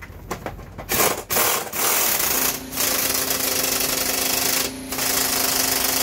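Impact wrench hammering on a motorcycle's steering stem nut, tightening it. A few short bursts come first, then a long continuous run broken by two brief pauses.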